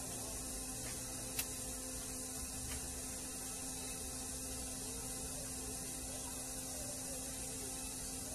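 Steady electrical mains hum with background hiss, and a single sharp click about a second and a half in.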